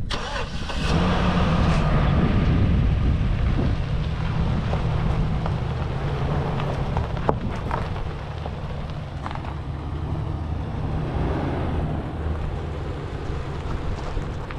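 Pickup truck engine idling steadily, a low rumble with wind buffeting the microphone. A single sharp click sounds about seven seconds in.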